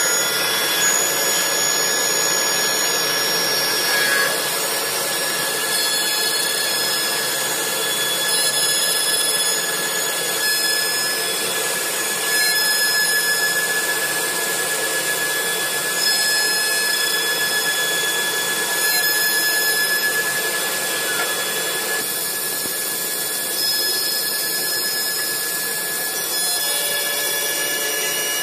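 CNC wood turning lathe with a carving spindle machining wood: a steady whine with cutting noise that swells a little every few seconds as the cutters work along the piece.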